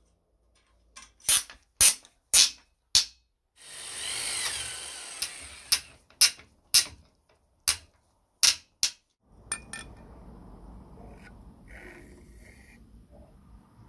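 Hand work with a screwdriver on the cast-iron frame of a washing mangle: a run of sharp, loud clicks and knocks, about two a second, broken around four seconds in by a two-second scrape with a wavering squeak. From about nine seconds in there is a quieter, low, steady rubbing.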